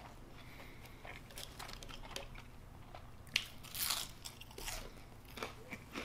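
Close-miked eating: faint mouth and chewing clicks, then a sharp bite into a curly fry a little past halfway, followed by a run of crunchy chews.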